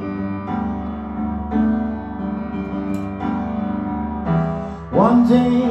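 Solo piano playing sustained chords in an instrumental passage of a song, with a man's singing voice coming back in near the end.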